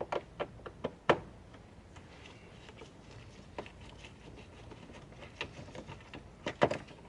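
Scattered sharp clicks and taps of a Torx screwdriver working a small screw out of plastic door-handle trim: several close together at the start, one midway and two near the end.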